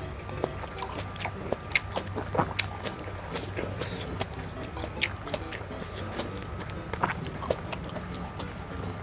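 A person chewing and biting food close to the microphone, with irregular short crunches and mouth clicks over a steady low hum.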